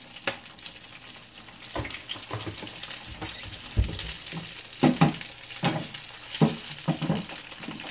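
Food sizzling in oil in a hot frying pan while being stir-fried, with a cooking utensil knocking against the pan several times.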